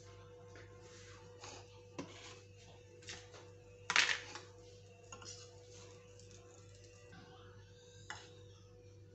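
Kitchen utensils clinking and knocking against a nonstick frying pan and a bowl while butter melts and a slice of egg-soaked bread is laid in. A few scattered clicks, the loudest about four seconds in, over a steady low hum.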